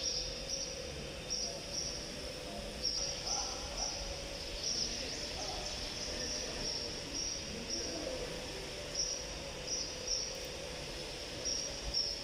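Insects chirping in a steady high chorus that swells in short, uneven pulses, with a faint steady hum underneath.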